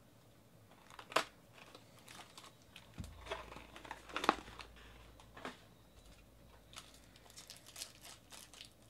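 Cardboard trading-card box handled, with sharp snaps about a second in and again around four seconds, the second the loudest. Near the end comes a foil card-pack wrapper crinkling as it is worked open.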